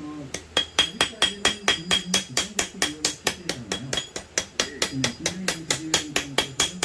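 Blacksmith's hammer striking steel on an anvil in rapid, even blows, about five a second, each with a bright metallic ring, as a garden hoe blade is forged.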